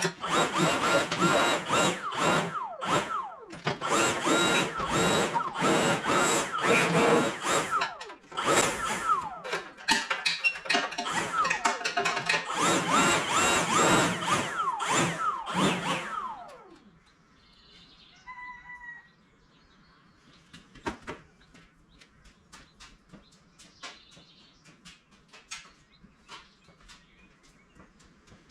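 A small power tool running in repeated bursts, its pitch dropping as each burst eases off, until it stops about sixteen seconds in. After that there are only faint light clicks.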